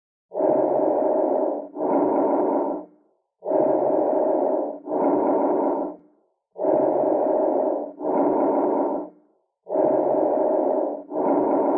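Recorded lung sounds: about four breaths, each an inhalation followed at once by an exhalation of similar length, repeating about every three seconds with short silent pauses between breaths.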